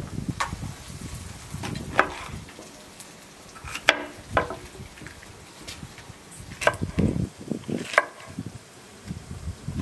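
A large kitchen knife cutting a green bell pepper on a wooden chopping board, with about six scattered sharp knocks of the blade hitting the board. Near the start, sliced mushrooms are swept by hand off the board into a metal tray with a soft scraping.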